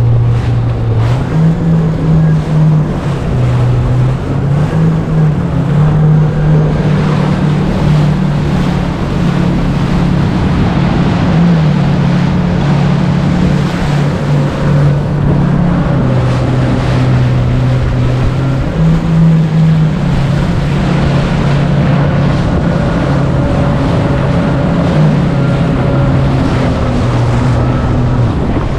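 Jet ski engine running under way on the sea, its pitch stepping up and down as the throttle changes, over rushing water.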